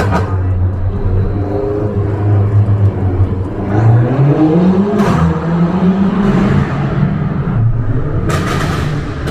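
BMW F90 M5 Competition's twin-turbo V8 running in a tunnel, its pitch rising as it revs about four seconds in. Its exhaust fires a sharp crack about five seconds in and a quick string of cracks near the end, like bursts from an assault rifle.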